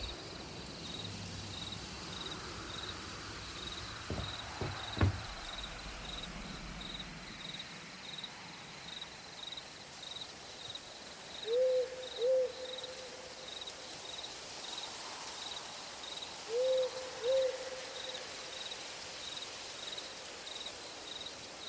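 Night ambience: crickets chirping steadily, about two chirps a second, with an owl hooting in two quick pairs, about halfway through and again some five seconds later.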